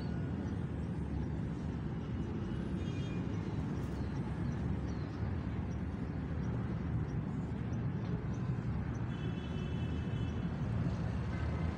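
Steady low rumble of city traffic, with faint brief high-pitched tones about three seconds in and again around nine seconds.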